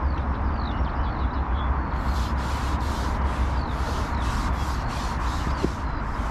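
Wind rumbling on the camera microphone at the water's edge, with small birds chirping. From about two seconds in, a rapid, rhythmic high-pitched hiss pulses about three times a second.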